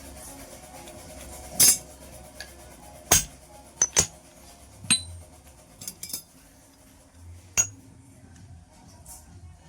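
Sharp metal-on-metal clinks and taps, about eight, coming at uneven intervals, some with a short ring. Faint music plays underneath.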